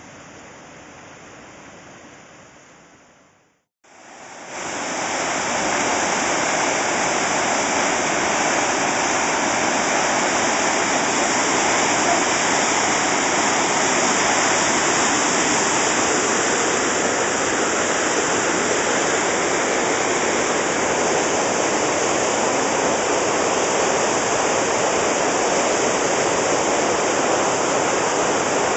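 Whitewater from the dam outlet rushing and churning down the concrete-walled channel below the dam: a steady rush of water, faint at first, cutting out just before four seconds in, then loud and close for the rest.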